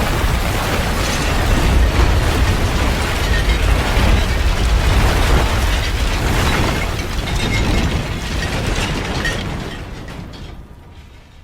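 A designed kaiju monster sound effect: a loud, rough, grinding crackle over a deep rumble, fading away over the last few seconds.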